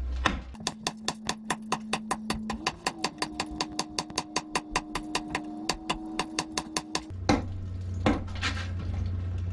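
A hand hammer striking a concrete-block basement wall in a fast, even run of sharp knocks, about five a second, chipping out a hole for a septic drain pipe to pass through. The knocking stops about seven seconds in. A low steady hum and a few more single knocks follow.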